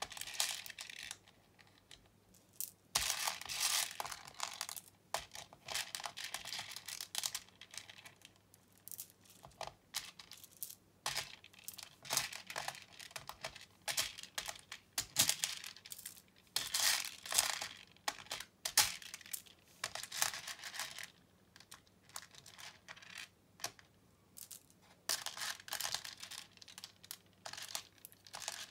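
Small plastic beads rattling and clicking as they are scooped up by hand, sifted through the fingers and dropped into a plastic organizer box, in irregular bursts with short pauses between.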